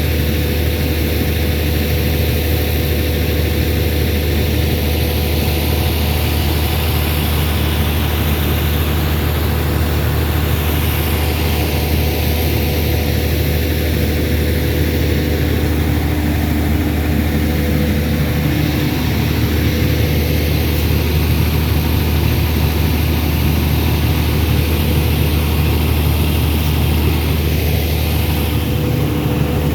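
Air compressor engine running steadily with a deep, even hum, over a constant rushing hiss, as the compressor is used to develop a tubewell.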